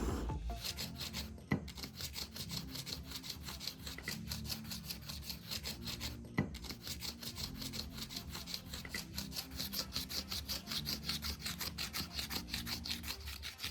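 Wood being abraded by hand with rapid back-and-forth rasping strokes, about five a second, as when a wooden hammer handle is filed or sanded to shape. A sharp tick cuts in about a second and a half in and again about six seconds in.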